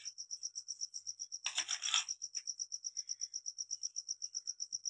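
Steady high insect chirping, an even pulsing at about ten pulses a second. About one and a half seconds in, a metal spoon scrapes briefly against a dish while spice paste is scooped.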